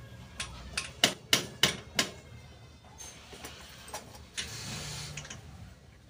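Sharp knocks on a motorcycle drum-brake wheel hub, about five in a second and a half, then a short scrape about four and a half seconds in, as the wheel bearing is driven into the hub.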